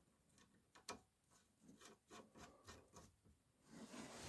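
Faint, irregular small metallic clicks and taps as a nut is started by hand onto the stud of a new Renault Duster anti-roll bar link. About three and a half seconds in, a soft rustling noise rises.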